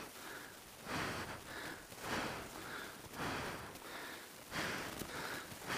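A person breathing hard close to the microphone, about one heavy breath a second.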